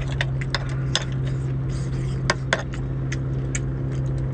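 Cooked shellfish clicking and clattering as they are sorted in a metal pot by hand and with chopsticks: several sharp clicks of shell on shell and metal, over a steady low hum.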